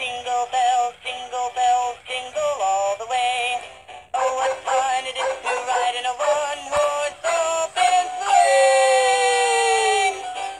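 2004 Hallmark Jingle Pals animated snowman and dog plush playing its Christmas song: a sung tune in short notes with music, ending in one long held note that slides down in pitch.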